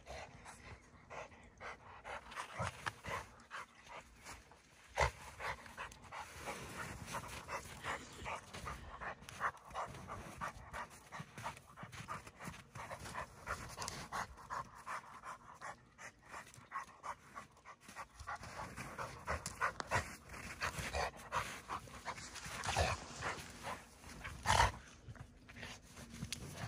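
A dog panting hard, with irregular crunching of slush and snow throughout. There are a few louder knocks, one about five seconds in and two near the end.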